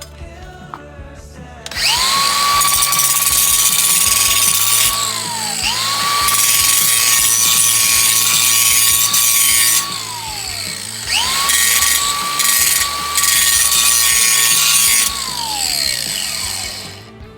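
Power drill run three times, each for about four seconds. Each run spins up quickly to a steady high whine with a hiss over it, then winds down with falling pitch when released.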